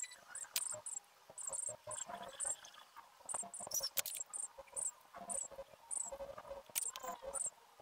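A cricket chirping in short high-pitched bursts, over the scratching and occasional taps of felt-tip markers colouring on paper.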